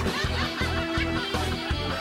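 Upbeat background music with a steady beat, and a person laughing over it.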